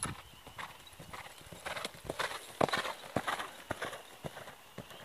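Hoofbeats of a ridden horse moving quickly over a soft dirt arena, a quick run of dull strikes that grows louder as the horse comes close in the middle, then eases off as it passes.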